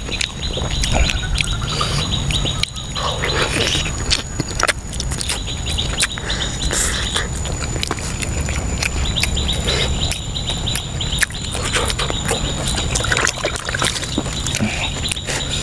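Close-up wet chewing and lip-smacking of someone eating soft stewed pork by hand: a dense, irregular run of short clicks and smacks.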